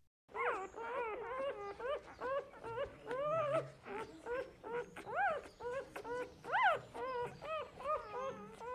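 Asian palm civet giving a quick run of short whining cries, each rising and falling in pitch, about two a second.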